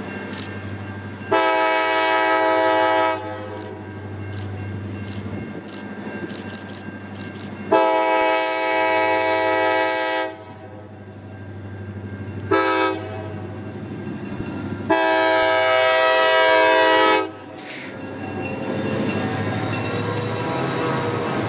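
Diesel locomotive air horn sounding the grade-crossing pattern: long, long, short, long. The last blast bends in pitch as the locomotive passes, over the steady hum of the EMD SD40 diesels. Near the end the rumble and rattle of the train rolling by swells up.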